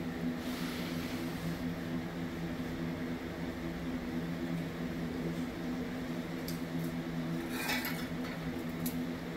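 Steady electric hum of a running box fan, with a few brief clicks and rattles of hand tools being handled about two-thirds of the way through.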